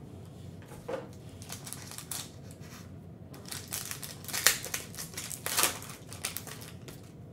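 A foil trading-card pack wrapper crinkled and torn open by hand, with cards sliding against each other; irregular crackling rustles, the loudest about four and a half and five and a half seconds in.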